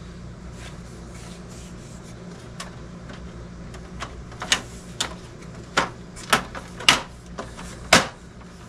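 The plastic front grille panel of a GE ADEL20LYQ1 dehumidifier being fitted back onto its plastic housing by hand. After a few seconds of low steady hum come about six sharp plastic knocks and clicks as the panel is set in place and pressed home.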